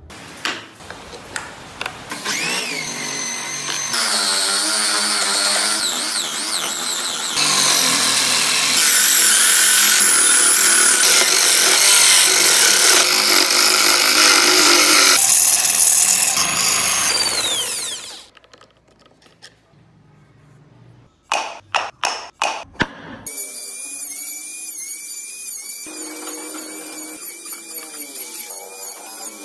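Wood lathe spinning a wooden wheel blank while a hand chisel cuts into it: a loud, rasping cutting noise for most of the first two-thirds, which cuts off sharply. After a few seconds of quiet with several sharp knocks, a small rotary tool whines at a steady high pitch, wavering slightly as its bit carves tread grooves into the wooden tyre.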